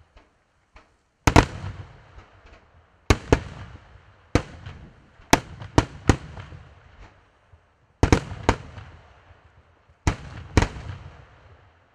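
Aerial firework shells bursting overhead: sharp booms every second or two, often two in quick succession, each trailing off in a rolling echo.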